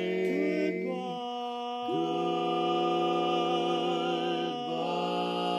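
Barbershop quartet singing a cappella, four men's voices holding long sustained chords in close harmony. The chord shifts about a second in, again about two seconds in as the bass slides up into it, and once more near the end.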